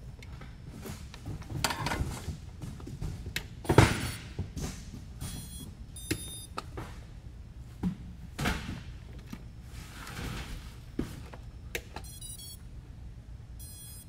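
Small hard parts and tools being handled and set down on a workbench mat, giving scattered clicks and knocks, with one sharp knock about four seconds in. Several short, high electronic beeps sound in the middle and near the end.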